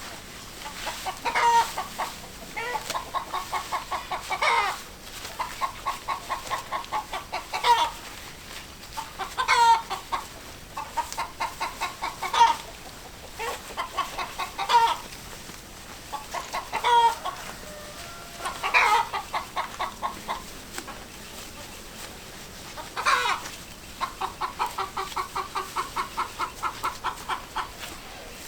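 A domestic hen cackling. Runs of quick clucks, about five a second, each end in a louder, higher squawk, and this repeats around nine times.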